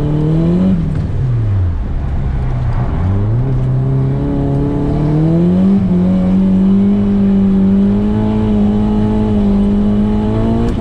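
Nissan S15 Silvia's four-cylinder engine heard from inside the cabin while drifting on a wet track. The revs climb, drop away just after a second in, then climb again and hold high and steady for the second half.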